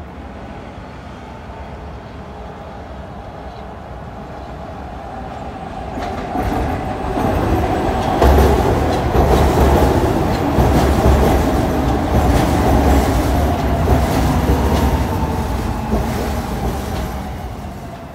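SEPTA Market-Frankford Line train of M-4 subway-elevated cars running along the elevated track. Its rumble and wheel clatter build from about six seconds in, are loudest for about eight seconds as the cars pass close, then fade near the end.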